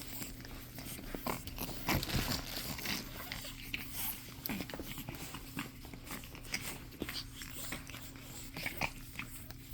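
Pug puppies playing and mouthing: scattered small clicks, scuffles and bites, with a brief low sliding sound about four and a half seconds in.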